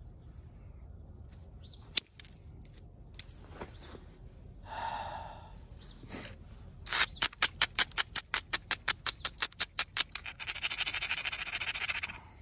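Abrader stone rubbed along the edge of a large stone biface: a few single clicks of stone on stone, then a fast, even run of short scraping strokes, about six a second, and then steady rubbing for about two seconds near the end. This abrading prepares the edge for the next strike.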